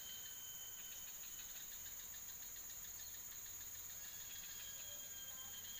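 Insects chirring steadily: a continuous high-pitched drone with faint rapid chirping pulses beneath it.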